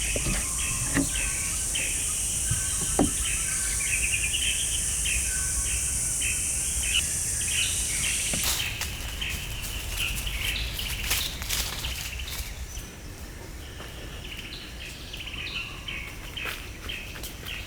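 Small birds chirping and calling in repeated short notes over a steady high hiss. The hiss cuts off suddenly about halfway through, and scattered light clicks and taps follow.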